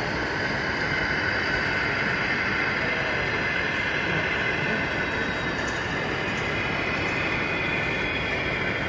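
Model railway train running on a layout, a steady rolling noise with no breaks.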